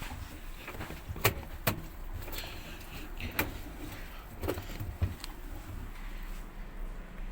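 A run of sharp knocks and clunks, about five over a few seconds, from a front-load washing machine being handled and tipped over, over a low steady hum.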